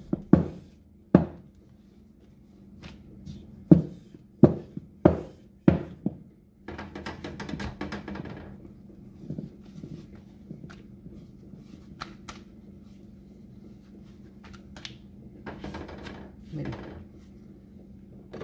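Wooden rolling pin rolling out flour tortilla dough on a granite countertop, knocking sharply about six times in the first six seconds, then a longer stretch of rolling. After that, quieter handling of the thin dough over a low steady hum.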